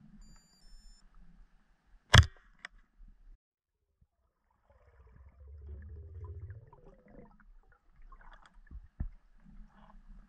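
Muffled underwater sounds heard through a camera housing: a sharp loud knock about two seconds in, a low rumble of moving water for a couple of seconds in the middle, and two smaller knocks near the end.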